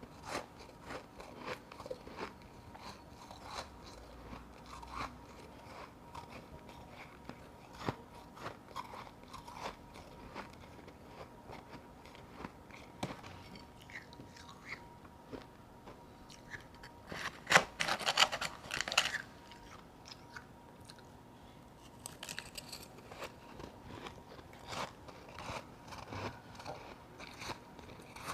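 Close-miked biting and chewing of powdery ice chunks: a run of small crisp crunches, with a loud burst of dense crunching about two-thirds of the way through.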